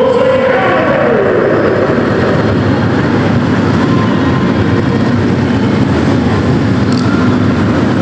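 Several Harley-Davidson V-twin police motorcycles running together as they ride in formation around a large hall, a steady dense engine noise. A pitched tone slides down about half a second in.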